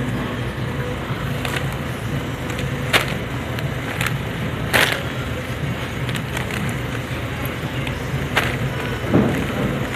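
Plastic-wrapped frozen food packs being handled in a supermarket chest freezer: about half a dozen short crinkles and knocks as packs are picked up and put back, with a duller thump near the end, over a steady hum of store background.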